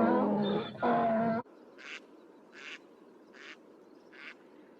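A donkey brays loudly and breaks off about a second and a half in. Then come four short, faint duck quacks, spaced just under a second apart.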